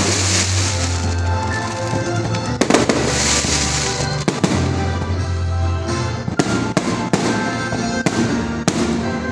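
Aerial fireworks shells bursting: sharp bangs throughout, most closely spaced between about six and nine seconds in, with a crackling hiss after the bursts near the start and about three seconds in. Music plays underneath.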